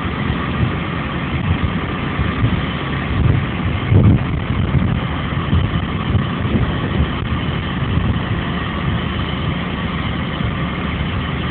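Heavy diesel machinery engine running steadily at idle, with a brief swell about four seconds in.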